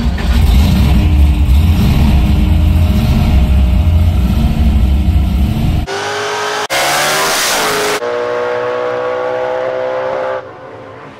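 Supercharged small-block V8 running, heard from inside the car's cabin as a heavy low rumble. About six seconds in, a blown 380 ci small-block Ford drag car revs up, gives a loud full-throttle blast at launch for about a second, then its engine note climbs steadily and fades near the end as it pulls away down the strip.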